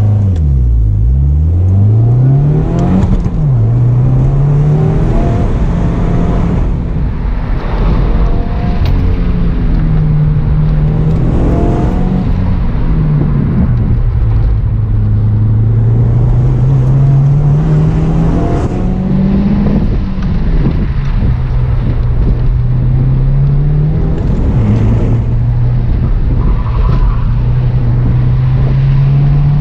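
Subaru WRX's turbocharged flat-four engine heard from the car on a track run, revving up and down as the driver accelerates, shifts and lifts. There are a few quick rises and falls in the first three seconds, then longer climbs and drops every few seconds.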